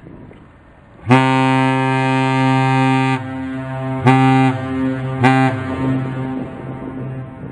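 Great Lakes freighter's horn sounding one long blast and then two short ones, the long-short-short master's salute. The deep horn drops slightly in pitch as each blast cuts off, and the sound echoes on briefly after each one.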